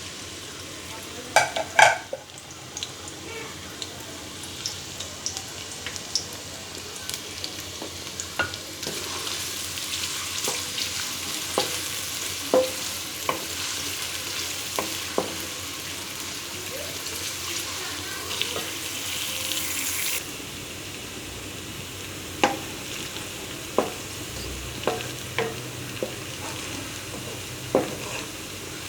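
Chopped onions sizzling as they fry in hot oil in a pot, with a spoon knocking against the pot as they are stirred. A couple of sharp knocks about two seconds in; the sizzle is strongest in the middle and drops suddenly about twenty seconds in.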